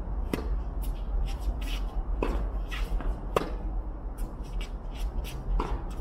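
Tennis rally: sharp pops of the ball off the racket strings about once every one to two seconds, with fainter ball bounces in between, over a steady low rumble.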